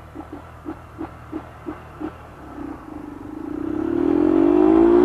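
Motorcycle engine at low revs with slow, evenly spaced low thumps, about three a second, then revving up steadily, rising in pitch and growing louder over the second half as the bike accelerates.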